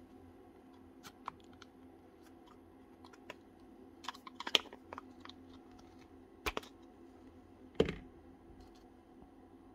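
Scattered light clicks and taps of small broken circlip fragments dropping onto the metal tray of a parts washer as a drill's gearbox housing is washed out, with a cluster about four seconds in and a louder knock near the end. A steady low hum runs underneath.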